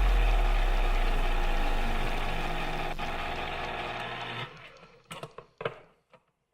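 Final held chord of a song's instrumental accompaniment over a deep bass note, fading slowly and breaking off about four and a half seconds in, followed by a few faint clicks.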